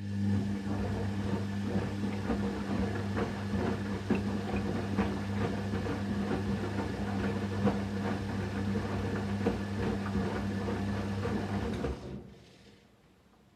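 Candy Aquamatic Aqua 1000 T washing machine running in its final rinse: a steady motor hum with many small clicks and knocks, which cuts off about 12 seconds in.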